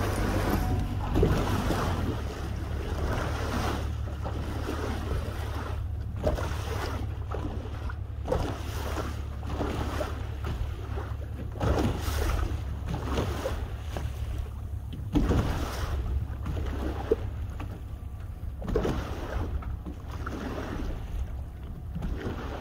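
Wind buffeting the microphone on open water, a steady low rumble with irregular louder gusts, and water lapping.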